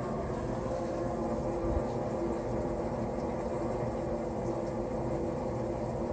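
Steady hum of household machinery, a fan and a running laundry machine, with a couple of held tones in it.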